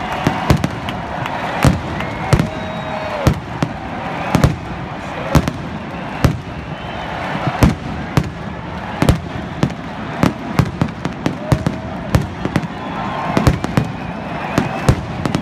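Fireworks show: aerial shells bursting in a string of sharp, irregular bangs, often two or three a second.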